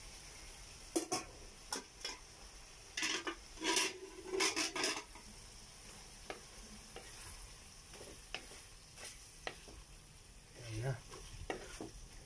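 Wooden spatula stirring and scraping thick dinuguan stew in a metal pan, with a string of scrapes in the first five seconds and lighter taps after. A faint steady sizzle of the stew boiling lies underneath.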